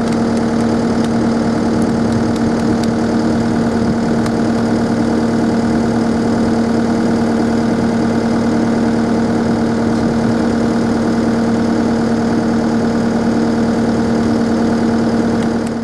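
Skid loader engine running steadily at idle close by, an even droning hum.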